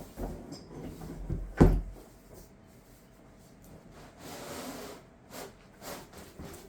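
Unboxing packaging being handled and moved about, with one loud thump about two seconds in, then a few softer rubbing, scraping sounds.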